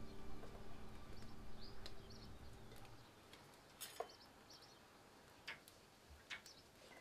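Background music fades out over the first few seconds, leaving a few light metallic clinks of a steel cup and steel vessels while idli batter is ladled into a steel idli mould, with faint bird chirps.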